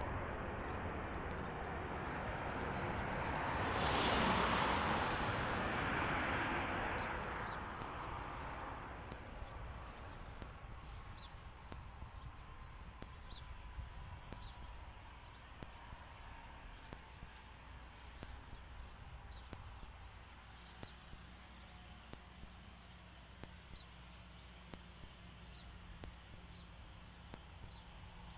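Jet engines of an Alaska Airlines Boeing 737-900 (CFM56-7B turbofans) rolling out on the runway after landing. The engine roar swells to a peak about four seconds in and then dies away as the jet slows. A faint whine falls slowly in pitch as the engines wind down.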